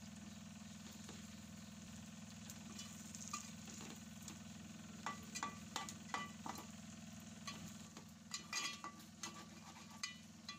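Fish pieces in masala gravy sizzling faintly in an aluminium pan over a steady low hum. From about halfway through, a metal spatula clinks and scrapes against the pan several times, most often near the end.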